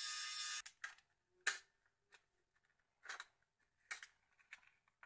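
A small electric screwdriver's motor whirring, cutting off under a second in, then a series of light sharp plastic clicks and taps as the Nokia 1610's opened housing and parts are handled and worked apart.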